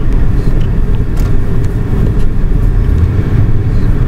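Taxi cab cabin noise while driving: a steady low rumble of engine and tyres on the road, with a few faint ticks.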